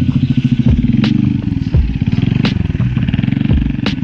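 Honda Zoomer X scooter's small single-cylinder engine running as it is ridden along. A sharp click repeats about every second and a half.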